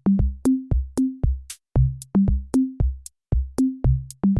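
Electronic background music: a drum-machine beat of kick drums, short low notes and sharp high ticks, about four hits a second.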